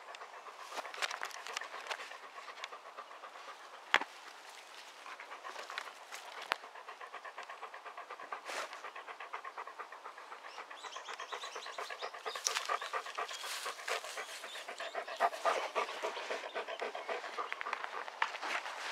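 A black-and-tan dog panting quickly and steadily, right up close to the microphone, with one sharp click about four seconds in.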